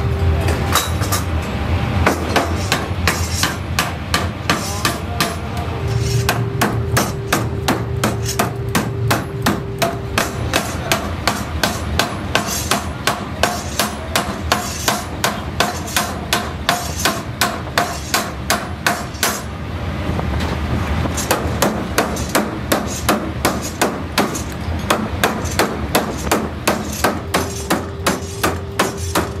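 Mechanical power hammer forging a red-hot steel billet in a ring die: a fast, even run of blows at about two to three a second, with a short break about two-thirds of the way through, over a steady low hum.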